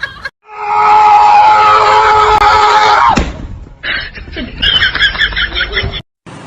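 A loud scream-like cry held at one steady pitch for about two and a half seconds, cutting off suddenly, followed by a run of quicker, shorter repeated sounds.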